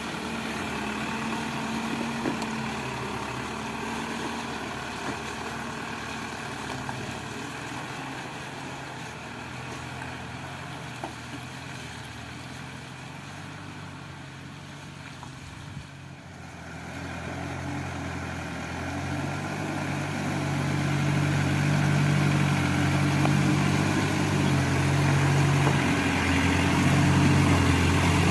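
Engine of a heavy construction machine running steadily, fading somewhat toward the middle, then growing louder over the last ten seconds or so as it comes nearer or works harder.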